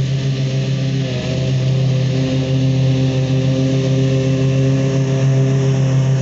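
Bad Boy Revolt 36-inch mower's engine running steadily under cutting load, getting louder as the mower comes close by.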